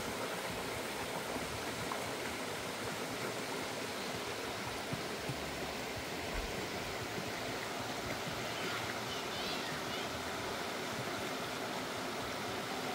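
Shallow rocky creek flowing over and around stones: a steady, even rush of running water.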